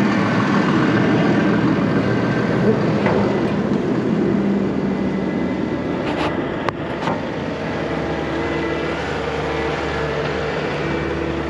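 Farm tractor engine running steadily, its note changing about halfway through, with a couple of short clicks.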